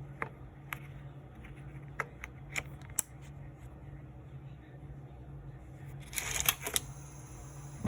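Small plastic parts being handled: a 3D-printed knob fixture and stove knob giving sharp clicks and taps, about six in the first three seconds, then a short rattling, crinkling flurry about six seconds in, over a steady low hum.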